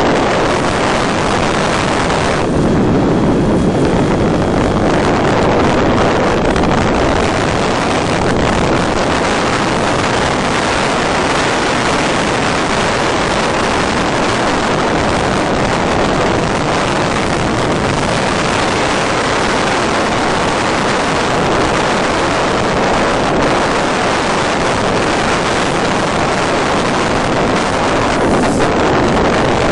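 Steady rushing noise on a model plane's onboard FPV audio as it glides with its electric motor off, so no motor tone is heard.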